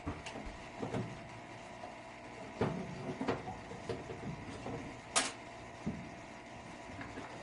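Irregular knocks, clicks and clatter of tools and metal parts being handled during furnace servicing, with one short hiss about five seconds in, over a steady machine hum.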